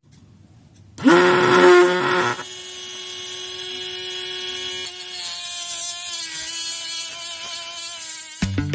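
Small DC motor from a used RC toy car, driving a homemade mini sander: it switches on about a second in and runs with a steady high whine whose pitch later wavers. A few sharp clicks come near the end.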